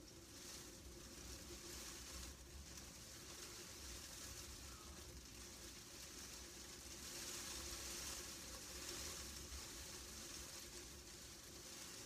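Hail falling on the window glass, heard from inside as a faint, steady hiss that swells for a couple of seconds past the middle.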